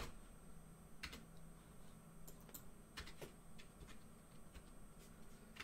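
Near silence with a few faint, scattered clicks of a computer keyboard, single taps spread over several seconds.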